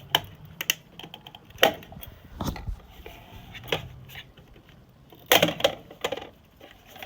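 Irregular clicks, snaps and small knocks of wire terminals and a furnace ignition module being handled and plugged in, with a loud cluster of clicks about five seconds in. A faint low steady hum runs underneath.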